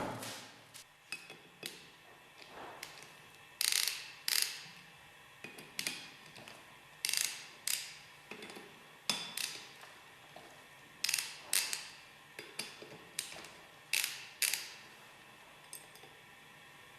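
Hand tool working the Allen screws out of a separator bowl's water chamber bottom: sharp metallic clicks, often in pairs, every second or two, with fainter ticks between them.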